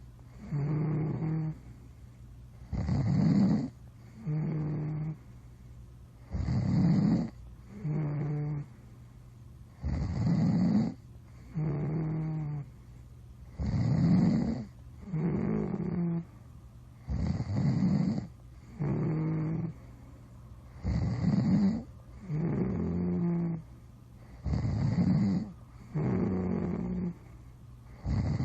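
Steady, rhythmic snoring, about eight breaths with roughly three and a half seconds between them. Each breath gives a loud, fluttering snore followed by a shorter, quieter, steady-pitched tone.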